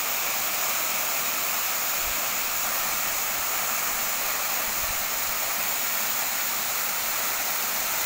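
Tall waterfall pouring into a rock pool: a steady rushing of falling water that does not change.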